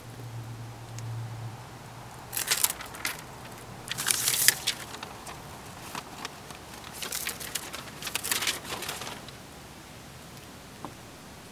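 Self-adhesive rubberized asphalt window flashing being peeled from its release paper and pressed into place, in crackling, crinkling bursts from about two seconds in to about nine seconds in. A low hum runs underneath at the start and stops about a second and a half in.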